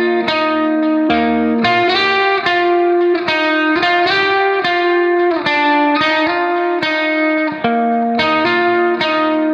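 Background music: plucked guitar notes playing a melody, each note changing every half second or so.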